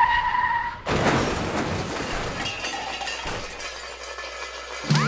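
Sound-effect car crash: a tyre screech that breaks off into a crash with shattering glass, the noise dying away over about four seconds. Just before the end a rising siren wail begins.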